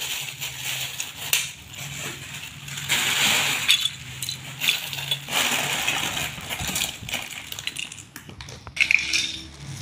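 Loose plastic Lego bricks clattering and clicking against each other as hands rummage and sort through a pile of them, with louder stretches of rattling a few seconds in and again in the middle.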